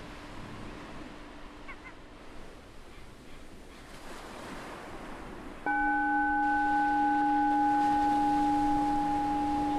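Ocean waves washing on a beach, then a little over halfway through a meditation bell is struck once and rings on over the surf with a steady, clear tone of several pitches, much louder than the waves.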